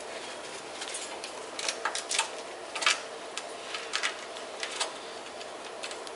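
Ferrets' claws scrabbling and scratching: a run of irregular short scratches and clicks, the loudest about three seconds in, over a steady background hum.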